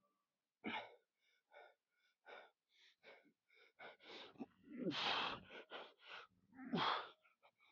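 A man breathing hard in quick, sharp breaths, with two longer, louder strained breaths about five and seven seconds in: heavy breathing from the effort of a weightlifting set.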